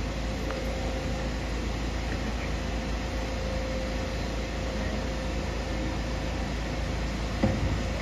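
Steady background hum and hiss with a faint constant tone running through it, and a few low knocks near the end.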